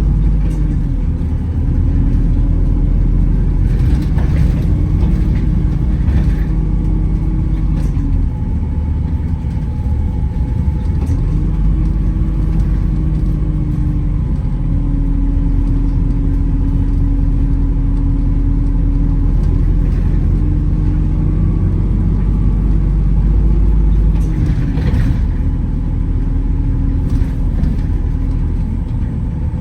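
Wright Gemini 2 hybrid double-decker bus under way, heard from inside: a steady low drivetrain and road rumble with a whine that rises and falls a few times as the bus speeds up and slows. There are a few short knocks from the body.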